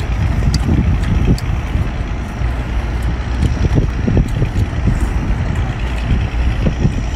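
Steady low rumble, with a few brief soft mouth sounds over it as a man chews sea-snail meat.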